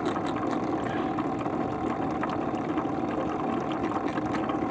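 A small engine running steadily with an even drone, with a few faint light clicks over it.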